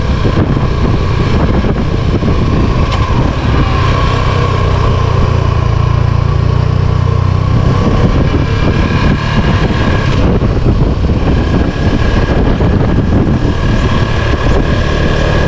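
A motor vehicle running, a loud, steady, unbroken noise.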